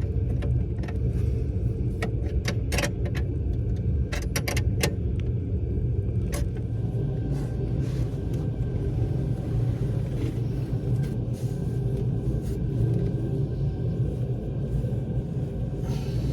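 Sharp, irregular metallic clicks and taps of a hand wrench working nuts, thick in the first six or seven seconds and sparse after, over a steady low rumble.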